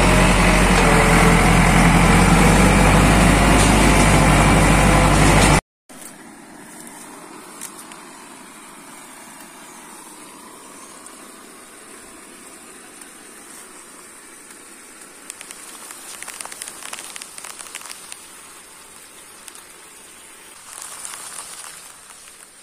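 A motor vehicle's engine running steadily, loud and close, cutting off abruptly about five and a half seconds in. After that there is only quiet outdoor background with a few faint rustles.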